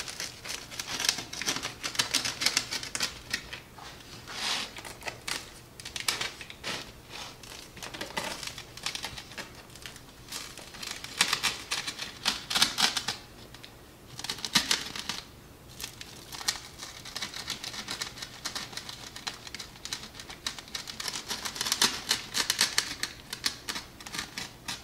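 Pizza wheel cutter rolling through a crisp pizza crust on a wooden peel: rapid crunching crackles in spells, with short pauses between strokes. The crunch shows the crust is crisp all the way through, not soggy.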